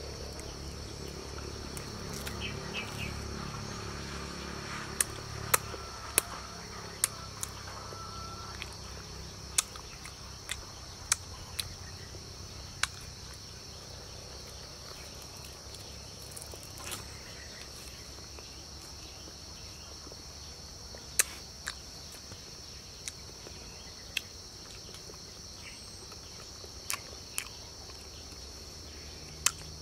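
A steady, high insect chorus of crickets or cicadas, with irregular sharp clicks scattered through it, more of them in the first half.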